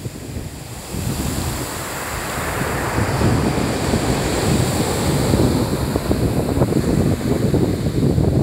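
Ocean surf: waves breaking on the shore and foam washing up the sand, the hiss swelling about a second in and staying loud, with wind buffeting the microphone.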